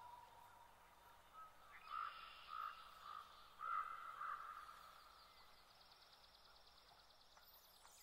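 Near silence with faint wildlife sounds from a nature recording: a loon's long wail fading out at the start, a few soft calls about two to four seconds in, and a faint rapid trill in the middle.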